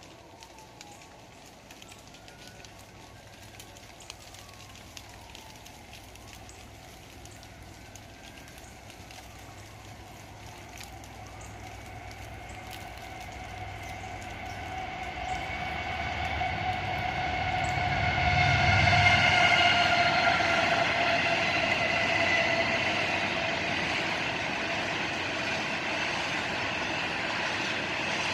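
Diesel freight locomotive approaching, growing steadily louder while its air horn sounds in long, steady tones, loudest about two-thirds of the way in, with engine rumble underneath. Rain patters in the background.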